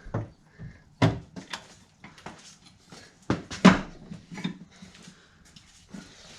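Metal hand tools, a socket and extension, clanking and knocking as they are handled and fitted: several sharp metallic knocks at uneven intervals, the loudest about three and a half seconds in.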